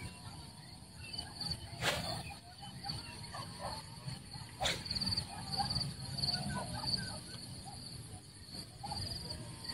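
Marsh ambience: insects chirp in a steady pulsing trill, short bird calls come and go, and wind rumbles on the microphone. Two sharp snaps sound about three seconds apart.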